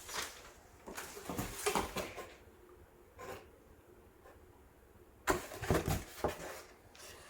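Rustling and crinkling of mailing packaging being handled and opened, in a cluster about a second in and again just past the five-second mark, with a brief rustle in between.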